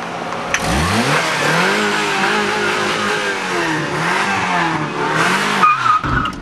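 Subaru Impreza's flat-four engine revving up sharply about half a second in, then held at high revs, rising and falling a little, for about five seconds before dropping off. A short high tone sounds near the end.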